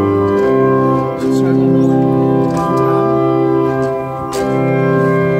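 Pipe organ playing sustained chords on its principal (prestant) stops, dark and mild in tone, moving through several chord changes. A sharp knock about four seconds in as a wooden stop knob is worked.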